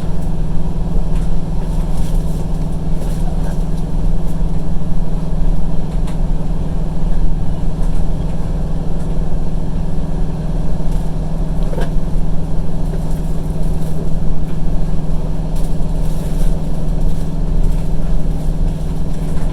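Steady, loud mechanical hum of a passenger train heard from inside the carriage, with a strong low drone and a few faint clicks.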